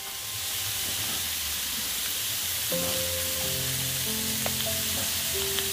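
Chopped vegetables frying in hot mustard oil in a pan: a steady, even sizzle as they are stirred, with a couple of light clicks near the end.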